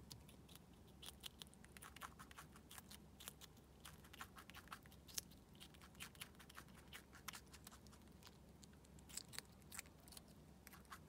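A Richardson's ground squirrel biting and crunching a raw cucumber slice: faint, crisp little crunches in quick irregular runs.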